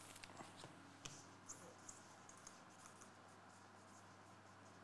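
Near silence: a faint steady room hum with a few soft clicks and taps from trading cards being handled and set down in the first couple of seconds.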